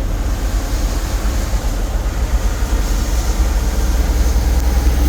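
Steady low rumble with an even haze of noise inside a vehicle stuck in traffic, growing slightly louder toward the end.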